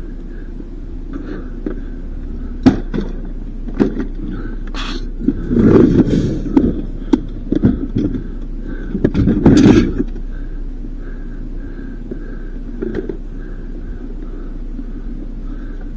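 Steady low rumble of a vehicle driving, with a few sharp knocks and two louder stretches of rattling and bumping, about six seconds in and again around nine seconds.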